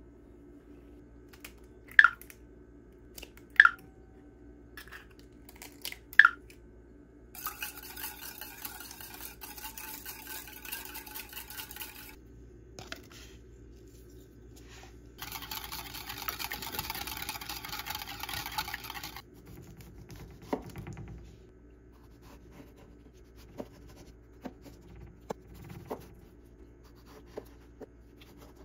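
Three sharp clinks, then a wire whisk beating eggs in a ceramic bowl in two spells of rapid scraping, then a chef's knife cutting tomatoes with scattered soft taps on the cutting board.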